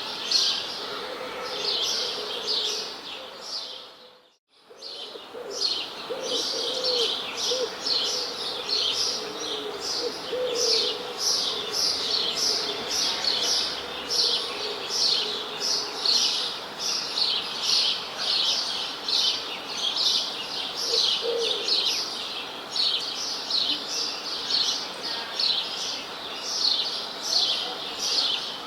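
Small birds chirping in a steady, dense stream of short high chirps, a few a second, with a brief dropout about four seconds in. A low, wavering cooing sits underneath for a few seconds after the dropout.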